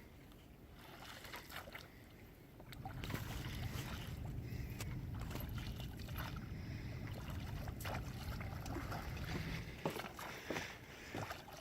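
Boat-on-water noise: a steady low rumble sets in about 3 s in and eases off near the end, with scattered light splashes and knocks.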